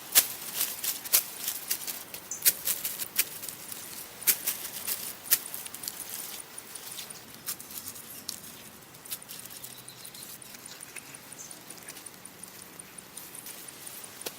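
Stones knocking and tapping against each other in hand stone-tool work: sharp, irregular clicks, close together for the first several seconds, then sparser.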